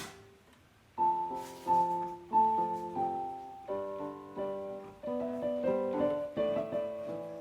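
Background piano music: a gentle melody of single notes over chords, coming in about a second in after a short swishing noise at the very start.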